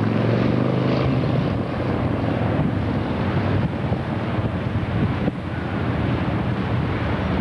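A steady motor drone, clearest in the first second or so, under rumbling wind noise on the microphone.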